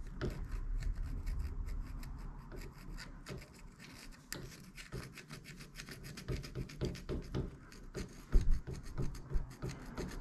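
Knife-edge file worked by hand in short strokes along the edge of the drift slot in a steel taper tool adapter, smoothing the edge where it was burred up by the drift. The strokes get louder in the second half.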